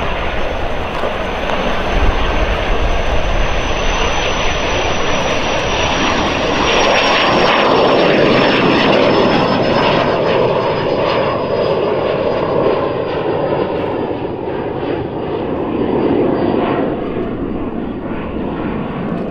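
Cessna 525 CitationJet CJ1's twin Williams FJ44-1A turbofans at takeoff power as the jet rolls down the runway and climbs away: a steady loud jet noise with a thin high whine that slowly drops in pitch. The noise is loudest a third to halfway through and eases off toward the end.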